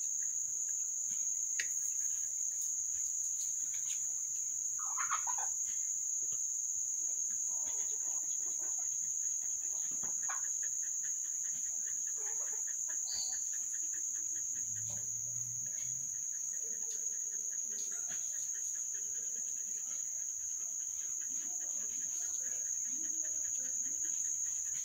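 Steady, high-pitched insect drone, typical of crickets, with scattered fainter bird calls.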